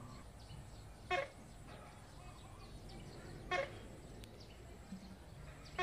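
A bird's short, sharp call, three times about two and a half seconds apart, over faint chirping and a steady low outdoor hum.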